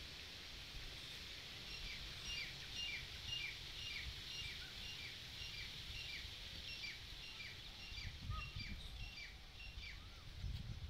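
A small bird calling over and over, a quick falling chirp about three times a second, over faint outdoor background noise with a low rumble.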